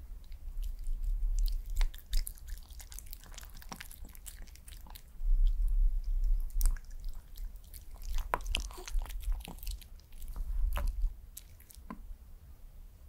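White Pomeranian taking a soft dumpling off a spoon and chewing it, with wet smacks and sharp mouth clicks in three spells of a second or two.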